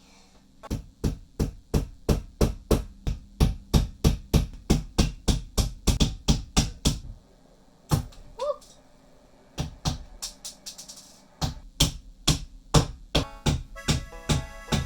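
Fast, steady hammering on a flat-pack bookshelf being assembled, about three to four blows a second, in two runs with a short pause in the middle.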